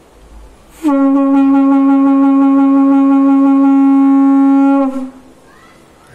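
Large conch shell (shankh) blown in one long, steady blast of about four seconds, starting about a second in and cutting off near the end: a single held note with many overtones.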